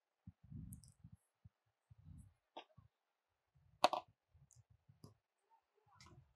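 Quiet handling noise: soft low thumps and a few short clicks, the sharpest and loudest about four seconds in.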